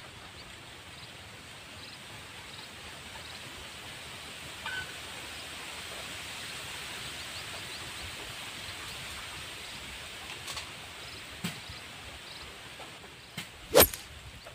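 Outdoor ambience by a ditch: a steady hiss that swells slightly toward the middle, with faint high chirps and a few soft clicks. One sharp, loud click comes about a second before the end.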